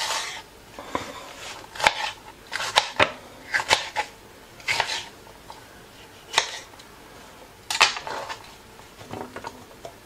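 Kitchen knife chopping a green pepper into pieces on a plastic cutting board: irregular sharp knocks of the blade against the board, a second or so apart.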